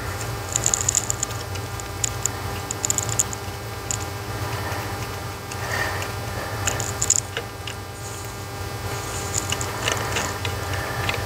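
Light clicks and ticks of a small Torx screwdriver and fingers working screws out of a plastic ABS control module housing, coming in short clusters, over a steady low hum.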